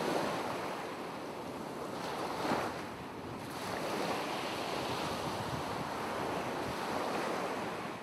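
Ocean surf sound effect: a steady wash of waves, swelling slightly about two and a half seconds in.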